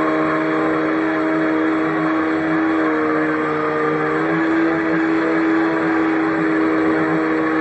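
RC boat's motor running at speed, a steady whine whose pitch shifts a little about halfway through, over the rush of water from the boat's wake.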